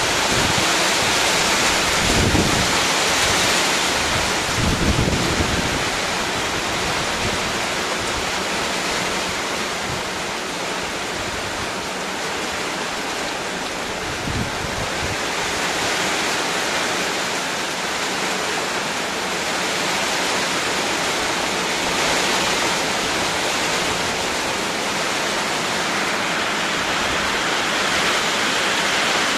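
Heavy rain falling as a loud, steady hiss, with a few brief low thumps about 2, 5 and 14 seconds in.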